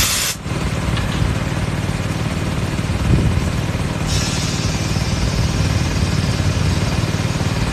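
Small engine-driven air compressor running steadily, filling its air tank. A short sharp hiss of air comes right at the start, and a fainter steady hiss of air runs from about halfway in.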